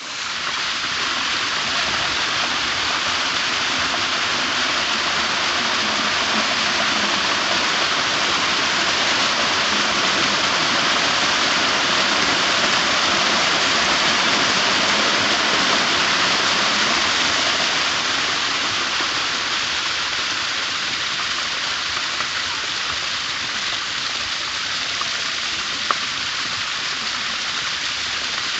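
Waterfall: water falling and splashing in a steady, unbroken rush, a little louder in the middle stretch. One sharp tick near the end.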